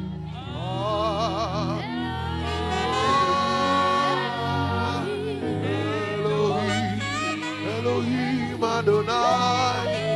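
Gospel worship singing: a lead voice with strong vibrato over steady, held low instrumental notes.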